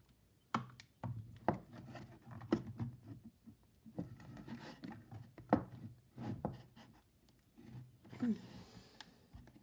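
Hand-handling sounds on a wooden speaker cabinet: a series of sharp knocks and clicks, about one a second, with some rubbing and scraping, while glued-in connectors are worked at.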